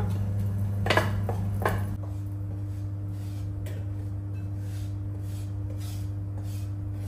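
A wooden spoon scraping and tapping softly against a nonstick pot as dry-roasted coconut is emptied into a bowl, with a few scattered light knocks over a steady low hum.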